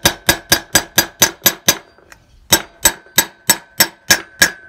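Hammer blows on an aluminum bearing-race driver, driving a new wheel-bearing race into a 1971 VW Beetle front drum hub. The strikes come about four a second, stop briefly about two seconds in, then go on about three a second, each blow ringing with a ping. That ping is the sign of the race being driven home toward its seat.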